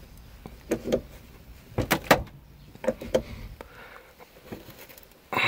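A 2-ton hydraulic bottle jack being pumped by hand: short clicks and clunks of the pump handle, about two a second in pairs, as the jack pushes up a floor joist to lift a sagging subfloor.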